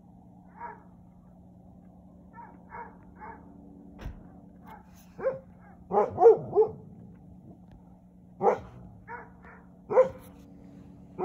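A dog barking in short yips, soft at first and louder from about five seconds in, with a quick run of three barks around six seconds and single barks after that. A steady low hum runs underneath.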